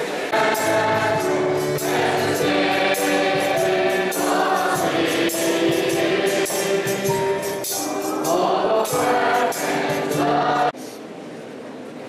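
A large group of voices singing a Christian song together over a steady beat of percussion. The music cuts off abruptly near the end.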